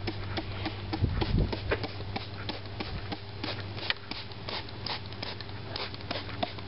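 Plastic trigger spray bottle being pumped over and over, a quick run of short squirts about three a second.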